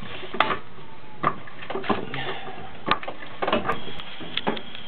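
Hydraulic floor jack being pumped by its long handle to lift the front of a car, with a metallic click or clank on each stroke, roughly one a second.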